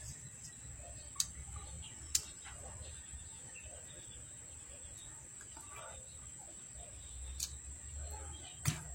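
Faint workbench handling while a microphone cable is being cut and worked: a few sharp clicks, about three, over a constant high-pitched whine and a low hum.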